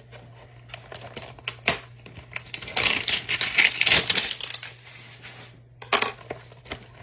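A trading-card hanger box and its packaging being torn open and handled: a run of sharp clicks and crinkling crackle, busiest in the middle, over a faint steady electrical hum.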